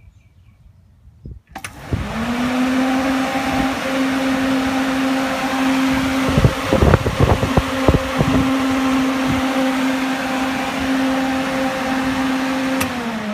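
Ford Mondeo twin electric radiator (thermo) fans switched on with a click about a second and a half in, spinning up to a loud, steady whir: a steady motor tone over rushing air. A few brief thumps sound near the middle, and the tone starts to drop at the very end as the fans wind down.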